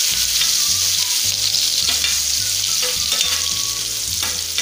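Chopped green chillies sizzling in hot oil with mustard seeds and cumin in a frying pan, stirred with a spatula, with a few scrapes of the spatula on the pan in the second half. This is the tempering stage, the chillies being sautéed in the oil.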